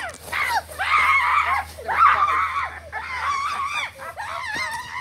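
A child screaming: several long, high-pitched wavering cries, one after another.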